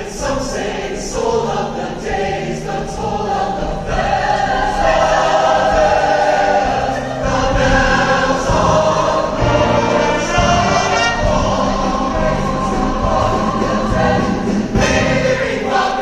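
Large mixed choir of women's and men's voices singing, the sound growing louder and fuller about four seconds in.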